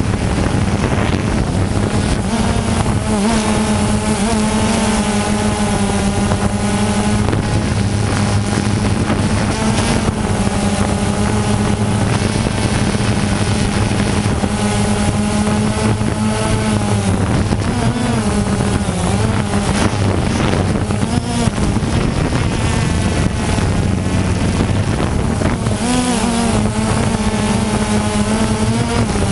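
DJI Phantom 2 quadcopter's four electric motors and propellers buzzing, heard from the GoPro mounted on the drone. The steady hum wavers in pitch now and then as the motor speeds change.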